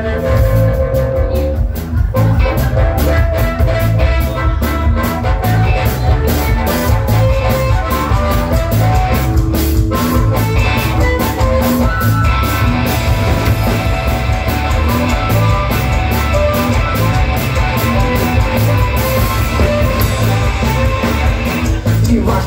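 Live rock band playing an instrumental passage with no vocals: drum kit, electric guitars and bass in a steady beat, with a harmonica joining about halfway through and stopping shortly before the end.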